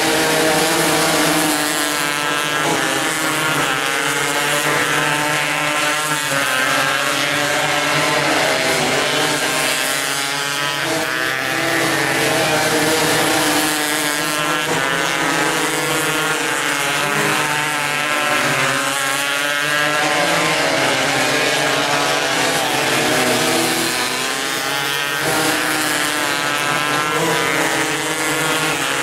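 Several 270cc micro sprint cars' engines racing on a dirt oval, their high-pitched notes overlapping and rising and falling in waves as the cars accelerate out of the turns and back off into them.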